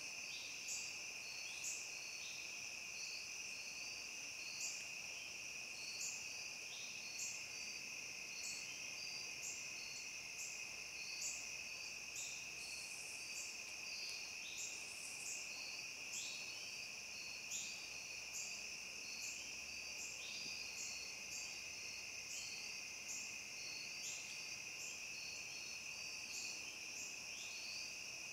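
Dusk chorus of crickets and other insects: a steady high-pitched trill with a second, rhythmic chirp repeating about once a second.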